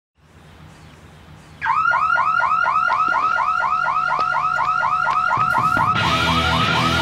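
Electronic alarm siren starting suddenly, a rapid warbling whoop repeating about five times a second. Music comes in near the end.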